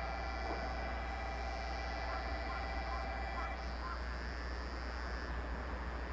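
Distant DE10 diesel-hydraulic locomotive approaching with a train of railcars: a steady low drone with a faint steady tone over it that stops about four seconds in.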